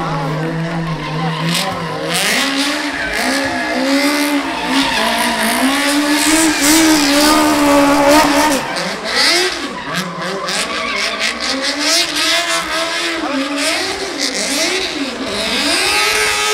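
Smart Diablo stunt car spinning donuts on tarmac: its engine held at high revs, the pitch swinging up and down as it circles, with the tyres squealing and skidding.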